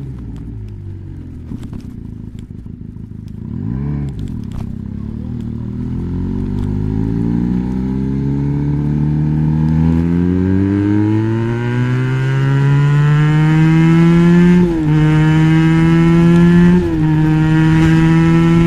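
Benelli BN302's 300 cc parallel-twin engine through an Arrow exhaust with its dB killer fitted: a short blip of the throttle about four seconds in, then the engine note climbs steadily and grows louder, with two brief dips in pitch near the end.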